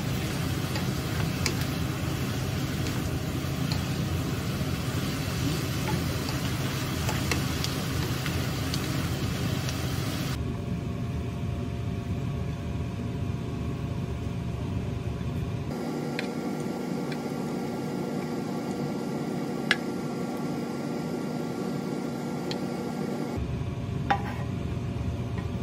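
Dumplings sizzling in sauce in a frying pan while a spatula stirs them. Later the sizzle drops away, and a few sharp clicks come from the spatula knocking against the pan as the dumplings are scraped out onto a plate, over a faint steady hum.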